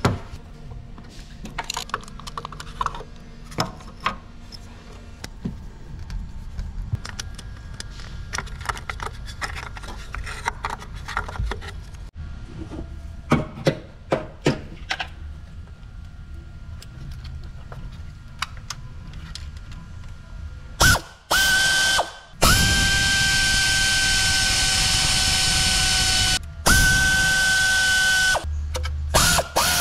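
A handheld cordless power tool's motor whines steadily in several bursts, with short stops between them, while working bolts on the front of an Opel Z18XE 1.8 16v engine. Before the tool starts, there are scattered clicks and knocks of parts and hand tools being handled.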